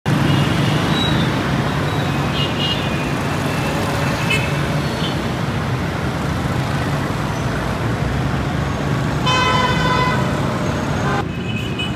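Busy road traffic running steadily, with a few short horn toots and one longer horn blast about nine seconds in.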